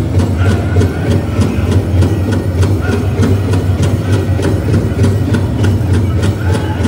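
Powwow drum group pounding a steady, fast beat on a big drum for the men's chicken dance, with the dancers' bells jingling in time.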